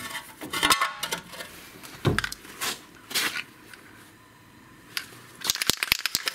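Metal clinks and knocks from handling brake pads and caliper parts, with one heavier thump about two seconds in. Near the end, an aerosol can of copper grease is shaken, and its mixing ball rattles in a quick run of sharp clicks.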